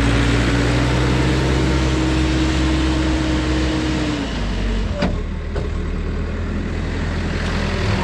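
Caterpillar backhoe loader's diesel engine running as it drives over fresh gravel, its note dropping a little past four seconds in. A sharp click about five seconds in.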